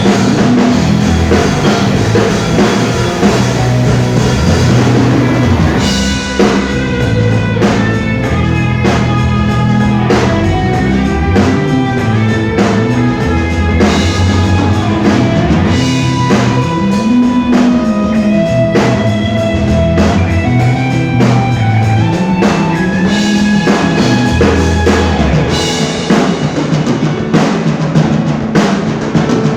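A rock band playing live, with a drum kit, a steady bass line and electric guitar. A busier melodic line comes in about six seconds in, and the bass drops away near the end, leaving the drums.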